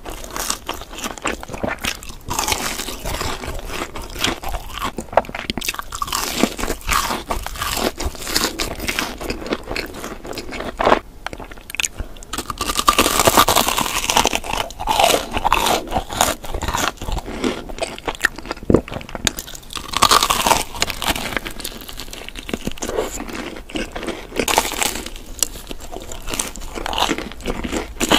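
Close-miked biting and chewing of Hot Cheetos-crusted fried food, including a corn dog on a stick: a dense run of crunches from the crumb coating.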